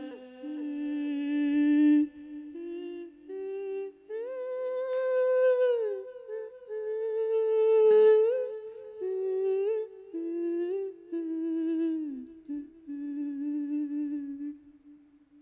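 A monk's voice in a Thai lae sermon chant, humming long wavering notes that step up and down in pitch, with a steady low note held beneath. It fades out near the end.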